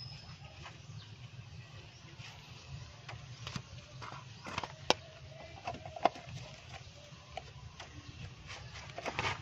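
Plastic distributor cap being handled and fitted onto the distributor: scattered light clicks and knocks, with two sharper snaps about five and six seconds in, over a low steady hum.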